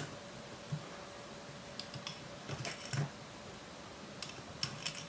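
Faint, scattered clicks and light taps of small metal fly-tying tools (bobbin holder and hackle pliers) being handled while the tying thread is wrapped at the fly's head, with a small cluster of ticks near the end.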